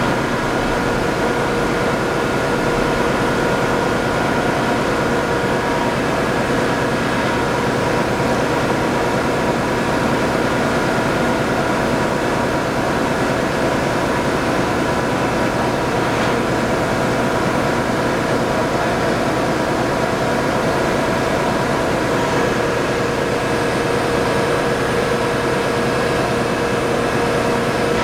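1961 Leifeld PLB 600 semi-automatic metal spinning lathe running, with its 15 HP spindle drive and 10 HP hydraulic pump motor: a steady machine drone with several steady tones in it.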